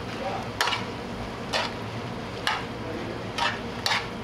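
Metal spoon stirring shell pasta in a large pan, knocking and scraping against the pan about once a second, with two strokes close together near the end, over a steady hiss.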